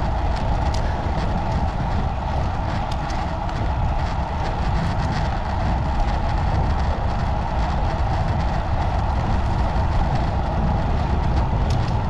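Steady rush of wind on the microphone and tyre noise from a bicycle rolling along a trail at speed.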